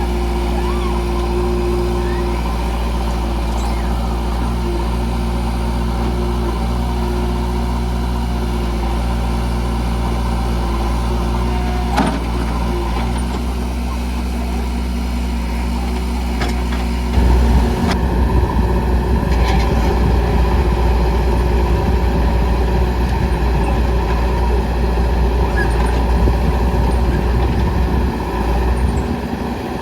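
JCB 3DX backhoe loader's four-cylinder diesel engine running steadily, then louder and rougher from about seventeen seconds in as it works under load. One sharp knock about twelve seconds in.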